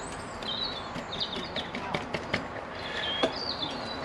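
Small clicks and scrapes of a screwdriver prying the rubber dust seal out of a 2003 Honda VFR800's front wheel hub, with birds chirping in the background.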